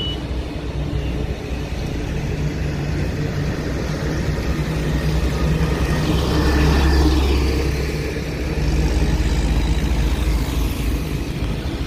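Diesel engine of a CAT 120K motor grader running as it drives past, a low steady rumble that grows loudest about six to seven seconds in. A motorcycle then passes close by, adding a second rise with a fast low pulsing engine beat near the end.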